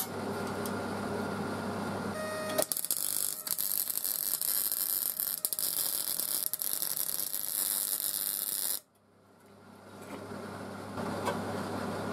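MIG welding arc crackling and hissing for about six seconds as a steel hinge is welded onto steel angle iron, stopping abruptly. Before the arc strikes there is a steady low hum.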